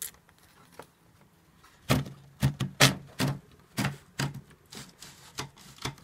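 Maritsa 11 typewriter being typed on, its typebars striking the paper on the platen: one sharp clack at the start, then about two seconds in a run of about a dozen irregular strikes, roughly three a second.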